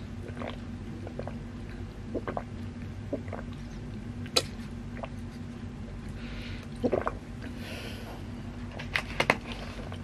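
Soft chewing mouth sounds, then drinking water from a plastic bottle: a sharp click about four seconds in, swallowing sounds around the middle, and a few sharp clicks of the plastic bottle near the end.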